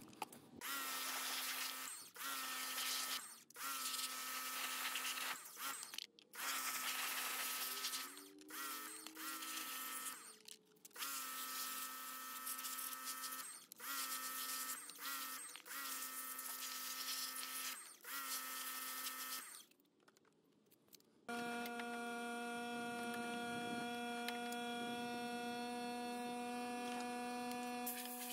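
Electric pressure washer running in about ten short bursts of one to two seconds as the trigger is pulled and released: a motor whine over the hiss of the water jet, each burst cutting off sharply. After a brief pause near the end, a steady electrical hum with no spray takes over.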